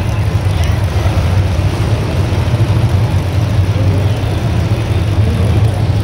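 Several demolition derby cars' engines running together, a loud steady rumble.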